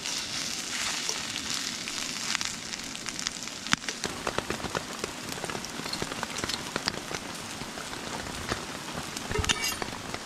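Eggs frying in a pan: a steady sizzle with scattered crackles and pops.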